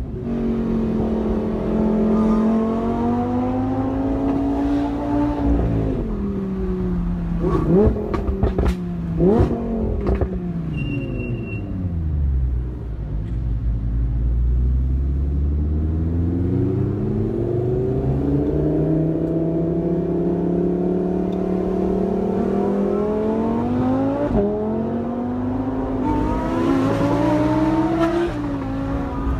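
V10 supercar engine revving up and down through several gear changes, with a few sharp exhaust cracks about eight to nine seconds in. The revs sink low around the middle, then climb steadily under acceleration.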